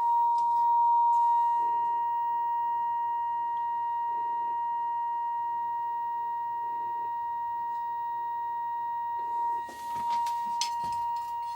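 A steady, unbroken high-pitched tone from the small black-and-white TV clock radio's speaker, like a test tone, holding at one pitch and level. A few clicks come near the end.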